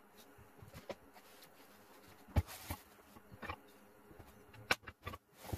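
Hardwood offcuts clunking against each other and against a cardboard box as hands rummage through it. Separate knocks come every half second or so, the loudest about two and a half seconds in and near the end.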